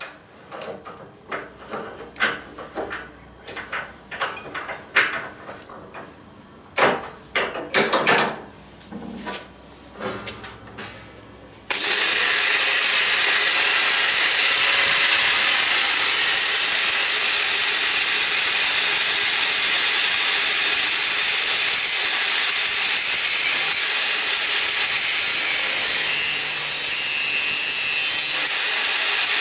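Irregular metallic knocks and clinks for the first twelve seconds or so. Then an electric angle grinder starts abruptly and grinds steadily on a steel exhaust pipe, a loud, even hiss that does not let up.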